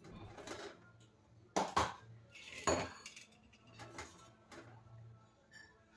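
Steel idli stand plates and a utensil clinking, scraping and knocking against a steel steamer pan as the steamed idli plates are worked loose and lifted out. Several light clinks, with three sharp clanks between about one and a half and three seconds in.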